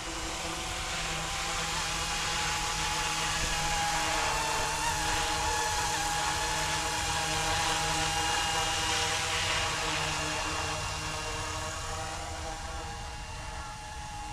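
Goosky E2 200-size electric RC scale helicopter in flight: a steady whine of its motors and rotors, growing louder through the first few seconds and fading near the end as it moves away.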